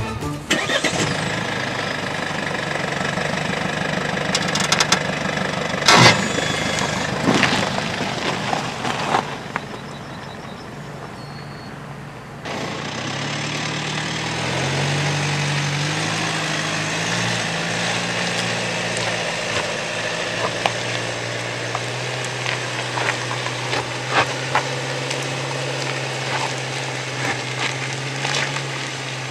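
Mercedes-Benz GLC SUV's engine pulling steadily up a steep gravel slope, its pitch rising briefly and then holding, with small crunching ticks from the tyres on loose stones. Earlier there is a rougher noisy stretch with one sharp knock.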